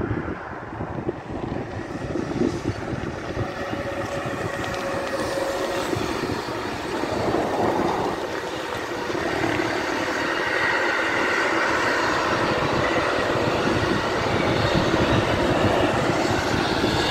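Electric-hauled intermodal freight train rolling past: the wheels of a long rake of pocket wagons carrying semi-trailers and tank containers running steadily on the rails, growing louder near the end.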